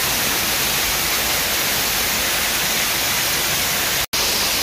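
Waterfall pouring over rock and splashing into a pool: a loud, steady rush of falling water. It drops out for a split second near the end.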